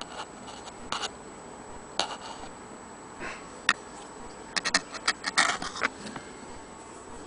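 Handling noise: scattered sharp clicks and light knocks, thickest in a quick run about four and a half to six seconds in.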